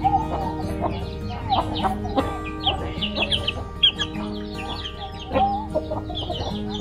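A flock of free-range chickens clucking, with many short high chirps, over background music with held notes.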